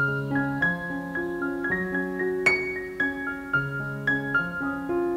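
Background piano music: a melody of single struck notes over held bass notes.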